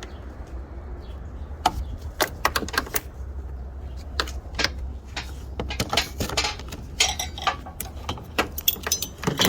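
Irregular sharp clicks and snaps of plastic push-pin retaining clips being pried out of a car's front bumper cover, over a steady low hum.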